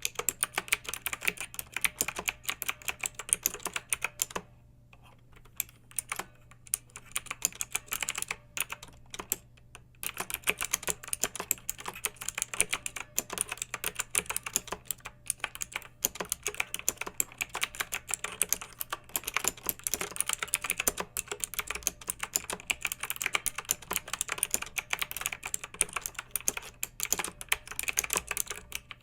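Clicky mechanical keyboard being typed on in rapid, continuous runs of keystrokes, broken by a short pause about five seconds in and a few scattered keystrokes before steady typing resumes at about ten seconds.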